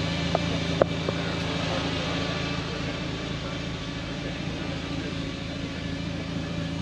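Steady low hum of an idling car engine, with a few sharp clicks in the first second or so.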